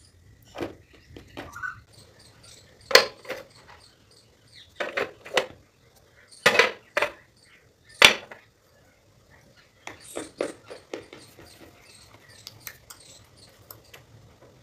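Slate pencil and shale stone being bitten and chewed: sharp crunches in small clusters, the loudest about three, six and a half and eight seconds in, with softer crunching between.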